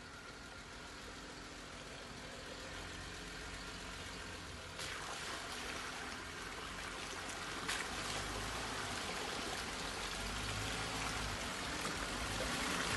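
Jeep Wrangler driving through a muddy puddle: the engine runs low and steady underneath while water splashes and pours around the wheels, getting louder from about five seconds in, with a couple of brief knocks.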